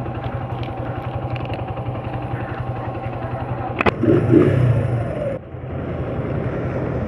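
Motorcycle engine idling steadily, with a sharp click about four seconds in and a brief louder, muffled sound just after it.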